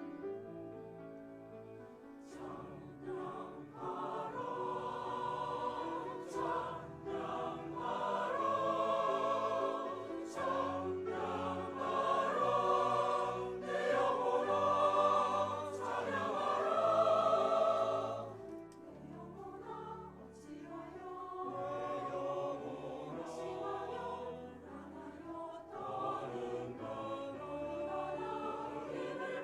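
Choir singing a Christian song with piano accompaniment. The piano plays alone for the first couple of seconds before the voices come in.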